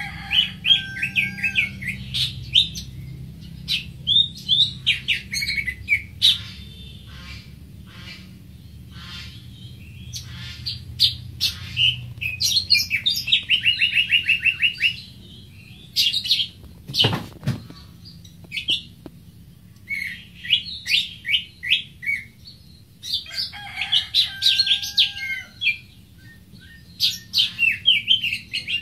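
Greater green leafbird singing: phrases of quick, high chirps and short slurred whistles with pauses between them. A single sharp click comes about seventeen seconds in.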